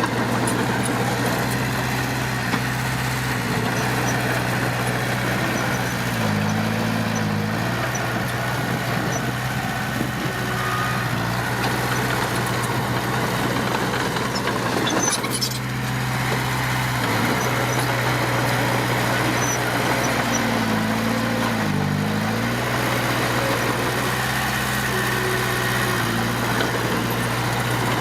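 Heavy diesel engine of earthmoving machinery running steadily. Its note dips briefly twice, about six seconds in and again about twenty-one seconds in.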